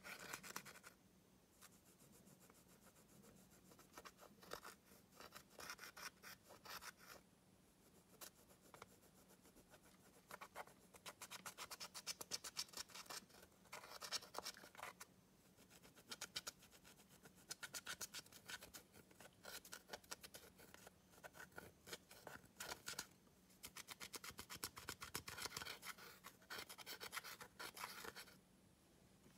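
A plastic stick scraping and crushing pressed eyeshadow powder in a makeup palette: dry, crackly scratching in stretches of a few seconds, with short pauses between.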